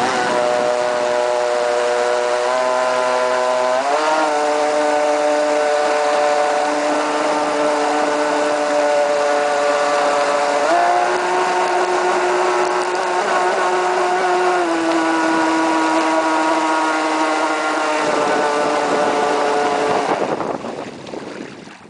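RC speedboat's 3300kV brushless electric motor on a 4S LiPo running at speed with a steady whine, its pitch rising with the throttle about four seconds in and again near eleven seconds, dropping slightly a few seconds later, then fading away near the end.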